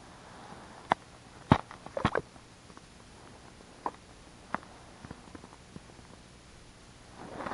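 Sharp knocks and clicks from a winter pike tip-up being handled and reset at the ice hole, loudest in a cluster about one and a half to two seconds in, then a few lighter taps.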